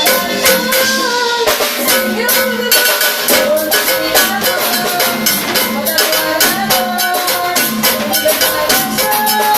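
Band music at a soundcheck: a fast, even percussion rhythm under a melody line of held, shifting notes.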